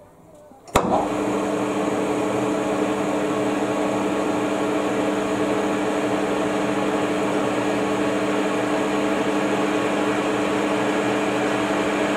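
Metal lathe starting abruptly about a second in with a sharp click, then running steadily with its spindle and ER32 collet chuck turning: an even mechanical hum with a few fixed tones from the motor and drive.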